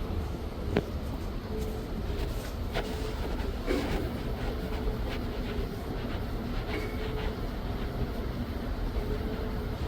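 Tormach CNC lathe running, a steady mechanical rumble with a faint tone that comes and goes and a few sharp ticks.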